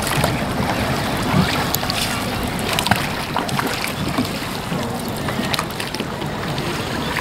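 Wooden rowboat being rowed: a steady wash of water and wind noise, with scattered short knocks from the wooden oars working against the boat.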